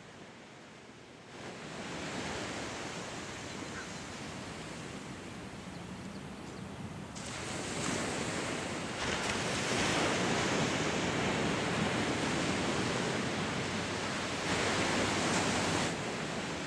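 Ocean surf washing onto a sandy beach, a steady rushing noise that swells louder about seven seconds in and fades away near the end.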